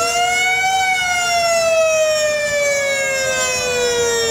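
Two fire-truck sirens wailing together. The higher one rises briefly and then slowly winds down in pitch, in the way a mechanical siren coasts down; a second, lower siren falls slowly beneath it.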